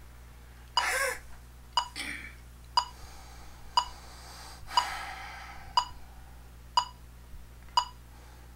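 Electronic metronome clicking steadily, about once a second, with a few audible breaths between the clicks.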